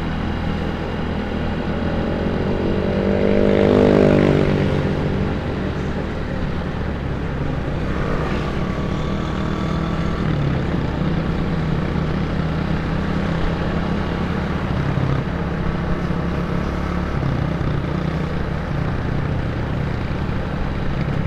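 Yamaha Mio GT automatic scooter engine running at a steady cruise, heard from the rider's seat. A swell of engine sound builds and peaks about four seconds in, the loudest moment, then settles back to the steady drone.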